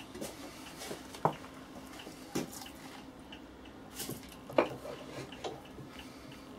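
A few scattered clicks and knocks of wood and tools being handled as a block of hardwood is set into a metal bench vise. There is no steady sawing.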